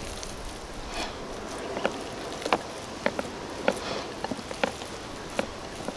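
Raw ground-beef meatloaf mixture being kneaded by hand in a glass bowl: irregular wet squishing clicks over a steady background hiss.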